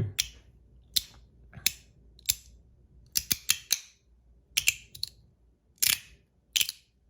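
Ant Design S-Nano zirconium magnetic fidget slider being slid back and forth, snapping with sharp clicks: about a dozen at irregular intervals, with a quick run of four near the middle.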